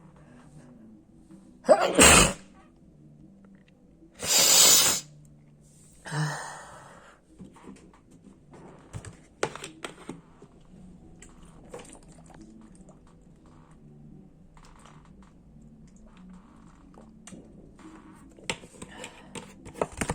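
Sneezing: a sharp sneeze about two seconds in, a longer one a couple of seconds later, then a softer third, followed by faint small clicks and rustles.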